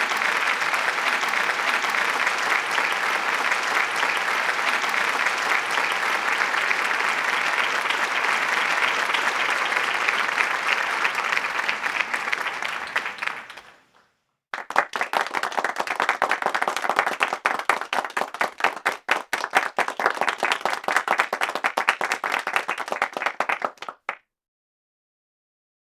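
Crowd applause, dense and steady, fading out a little past halfway. After a brief gap a second round of clapping starts with separate claps standing out, and it cuts off abruptly about two seconds before the end.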